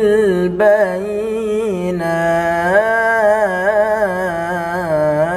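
A young man's voice reciting the Quran in melodic tilawah style, holding long ornamented notes that waver and slide in pitch, with a short break about two seconds in before the next phrase.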